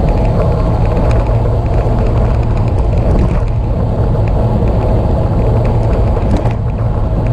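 Steady low rumble of wind buffeting a bike-mounted action camera's microphone, mixed with road and tyre noise from a road bicycle riding along.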